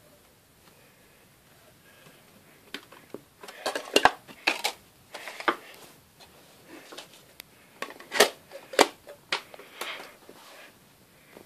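Compact discs being handled, clicking and clattering against each other and the floor: a run of sharp clicks and short scrapes that begins a few seconds in.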